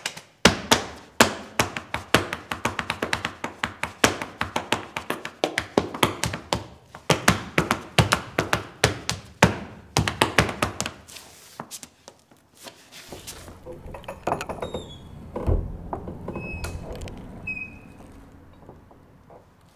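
A fast, irregular run of sharp percussive taps and knocks, several a second, for about twelve seconds. The taps then stop, leaving a low rumble with a few faint high chirps.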